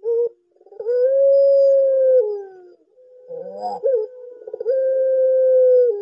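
Barbary dove of the puter pelung type giving its long drawn-out coo twice. Each call opens with a short rolling note, holds one steady note for over a second, then drops lower at the end.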